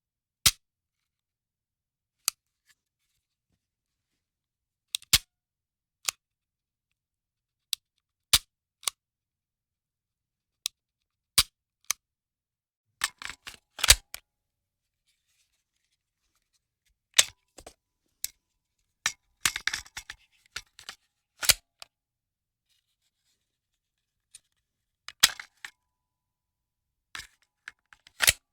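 Firearm mechanism being handled: a run of sharp metallic clicks and clacks at uneven intervals, some single and some in quick clusters, with no shots fired.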